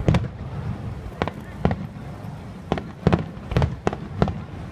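Aerial fireworks bursting: a quick, irregular series of about nine sharp bangs over a low background rumble.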